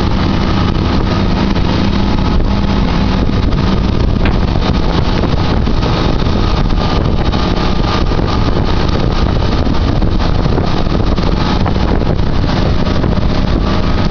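Twin Volvo Penta KAD43P-A six-cylinder marine diesels running steadily at planing speed under the hiss of water and wind.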